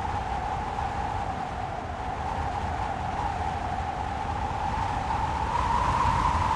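Wind blowing with a hollow whistling tone over a low rumble. The whistle dips slightly in pitch, then rises and grows louder near the end.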